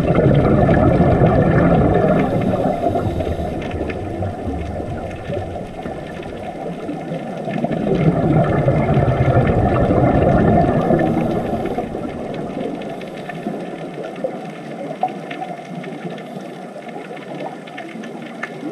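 Underwater ambience: a muffled, deep rush of water that swells twice and then eases off.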